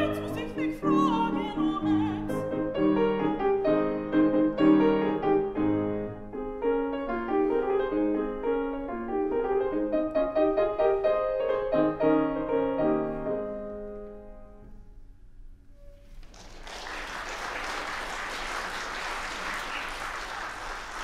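Grand piano playing a closing passage alone after the song, dying away about fourteen seconds in. An audience then applauds to the end.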